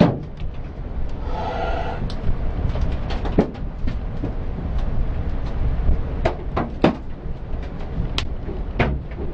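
Large hailstones hitting a Toyota Prius's body and windshield in sharp, irregular knocks, heard inside the cabin over a steady rumble of wind and road noise.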